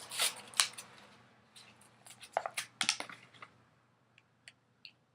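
Plastic lip balm packaging being handled and opened: a run of crinkles and sharp clicks over the first three and a half seconds, then a few faint clicks.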